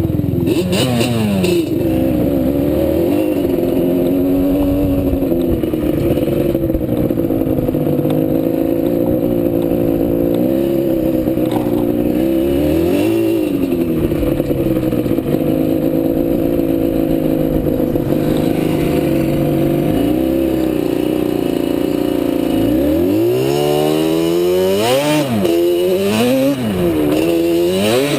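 ATV engine running under riding load, its pitch rising and falling with the throttle. Near the end it revs up hard several times in quick rising and falling sweeps.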